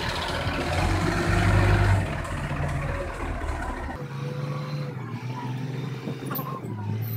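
City bus engine running as the bus pulls away, with a low rumble that eases after about two seconds and loses its deepest part about four seconds in.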